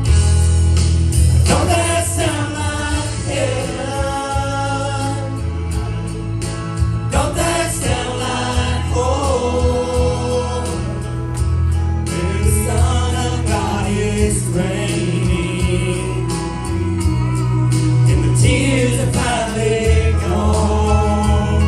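A church praise team singing a gospel song, several voices together, over instrumental backing with sustained bass notes.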